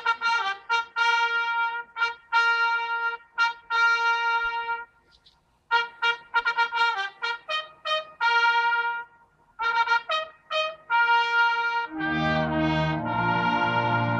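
Brass trumpets sounding a military signal call in short tongued notes and longer held notes, broken by two brief pauses. About twelve seconds in, the full brass band joins with a loud, sustained chord.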